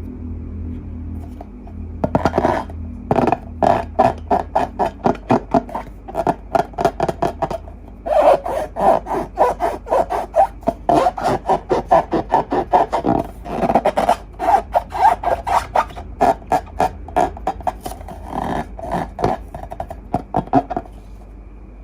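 Slime being squished and worked by hand: a rapid run of short, sticky crackles and squelches, about three to four a second, with a brief pause partway through.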